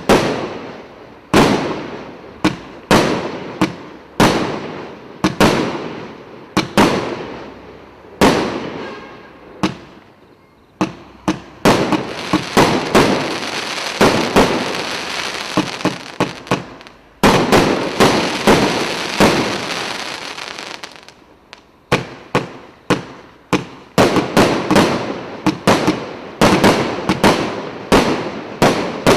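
"Zeppelin" multi-shot firework going off: a long series of sharp bangs, about one to two a second, each dying away. From about twelve to twenty seconds in, a dense crackling fills the gaps between shots. Near the end the bangs come faster.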